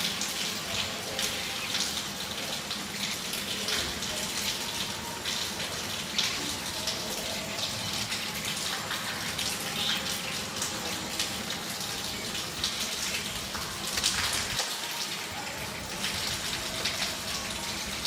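Monsoon rain falling steadily, with scattered sharper drips and splashes.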